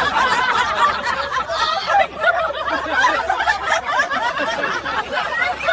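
Several people laughing together in overlapping chuckles and snickers, continuous throughout.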